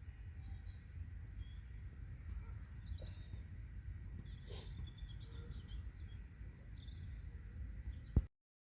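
Outdoor ambience: a steady low rumble with faint, scattered bird chirps. Near the end there is a sharp click, and the sound then cuts off abruptly to silence.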